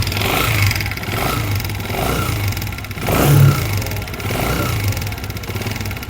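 Honda CG 125's air-cooled single-cylinder four-stroke engine running and revved up and down several times, with an abnormal mechanical noise that is not from the tappets but could be from the cam gear or its loose timing-gear pin.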